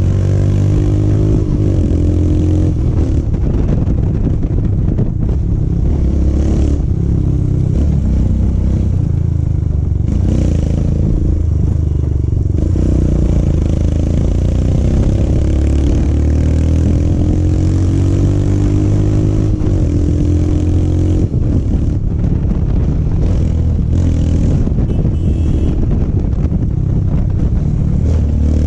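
Royal Enfield Himalayan's single-cylinder engine running through an Akrapovic slip-on exhaust while riding, its note rising and falling repeatedly with throttle and gear changes.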